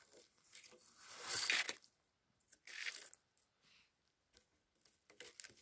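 Bank line being wrapped around wooden tripod poles and drawn through: intermittent rustling and scraping of cord on wood, with a longer hissing pull about a second in and a shorter one near three seconds.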